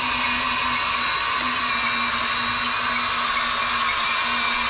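Electric motor of a Huina radio-controlled excavator running with a steady, high-pitched whir.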